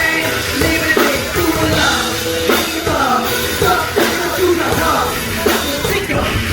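Amplified live rock band playing a song: a singer's melody over a steady drum-kit beat.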